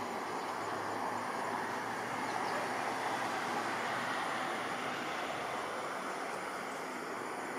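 Distant, steady rumble of an Embraer 170 regional jet's engines at takeoff power as it climbs away, swelling slightly a few seconds in.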